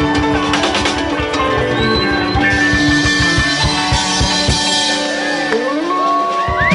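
Live rock band playing, with two electric guitars, a drum kit and a keyboard, in the closing bars of a song. The drums stop about five and a half seconds in, leaving held guitar notes with a rising slide, and the crowd's whoops begin right at the end.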